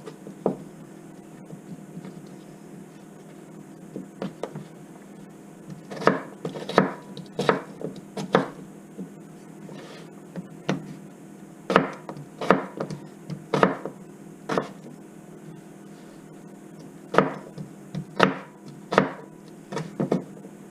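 Knife chopping a potato on a cutting board, in quick runs of sharp chops separated by pauses of a few seconds. A faint steady hum runs underneath.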